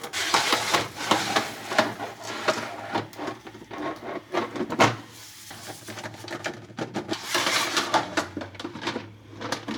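Plastic rail covers being handled and fitted onto a CNC gantry mill: irregular clicks, light knocks and scraping.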